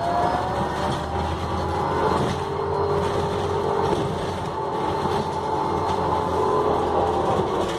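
City bus driving, heard from inside the passenger cabin: a steady low engine rumble under a drivetrain whine that rises in pitch in the first second, then holds roughly level.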